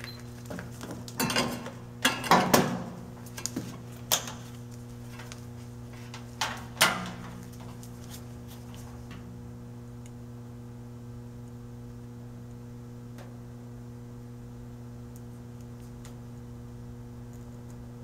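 Multimeter test leads and probes being handled and brought to the heater's wiring: several light clicks and knocks in the first seven seconds. A steady low hum runs under them and is all that is left after that.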